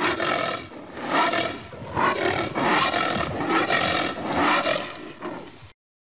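Anteater growling: a run of growls in quick succession, each under about a second long, breaking off abruptly near the end.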